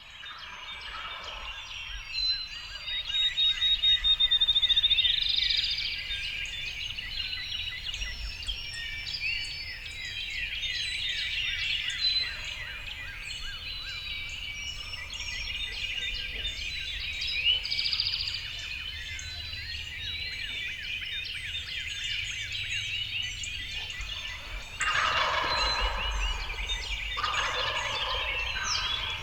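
Several wild turkey gobblers gobbling over and over, their calls overlapping, with songbirds chirping in the background. The loudest bursts of gobbling come about four seconds in and again near the end.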